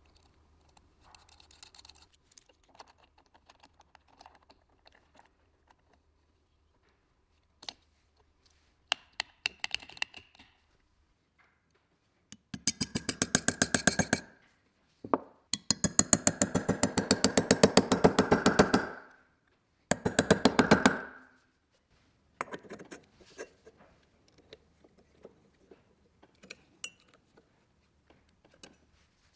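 Rapid runs of sharp metal taps, about four or five a second, in three spells: a hammer striking a brass punch to set the drive screws of the motor's new nameplate. Before and after them come light clicks and clinks of small metal parts being fitted.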